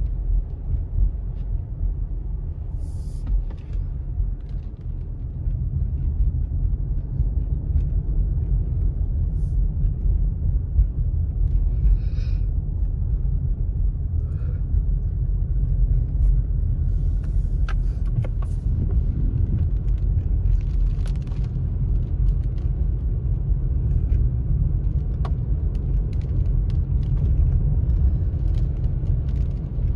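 Car driving on a wet road, heard from inside the cabin: a steady low rumble of engine and tyres that grows a little louder about five seconds in, with a few faint ticks over it.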